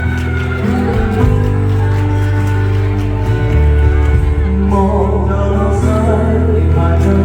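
Live band music, loud and steady, with a held bass line and a melody on top; a voice may be singing along.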